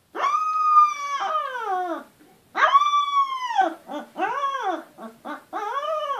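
18-day-old Goldador puppies crying: long, high-pitched wails held steady and then falling away at the end, followed by a string of shorter cries that rise and fall in pitch.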